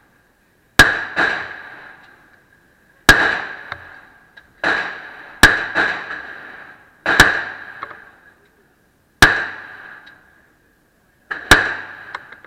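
Glock 42 .380 pistol firing seven single shots at a slow, aimed pace, about one every one and a half to two seconds. Each loud crack is followed about half a second later by a fainter second crack.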